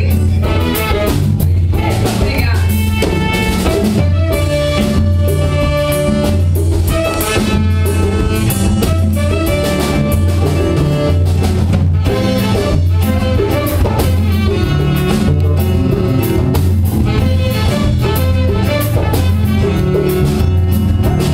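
Live band music with no words sung: a strong, steady bass under held notes and regular percussion.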